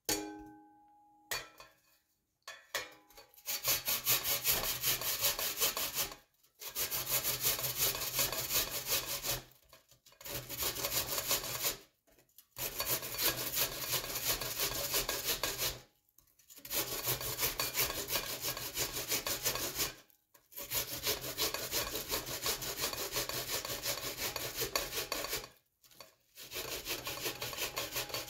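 Onion being rubbed up and down a stainless steel box grater over a glass bowl: fast rasping strokes in bouts of several seconds, broken by short pauses. At the start come a few light ringing knocks of the grater being set against the glass bowl.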